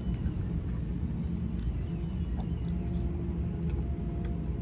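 Steady low rumble with a faint hum, and scattered small clicks over it.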